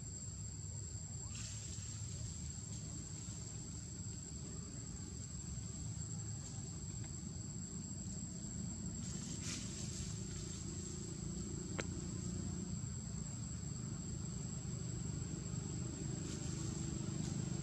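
Insects calling in a steady high-pitched drone over a low rumble, with a few faint clicks.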